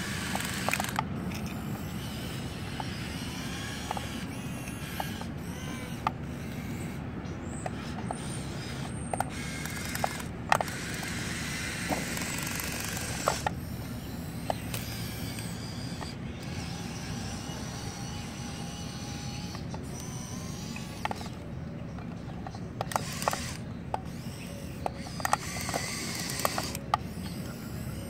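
Small electric motors and plastic gears of an RC Komatsu PC1250 toy excavator whirring and clicking as it works and drives on its tracks. The whirring comes in stretches, with scattered sharp clicks throughout.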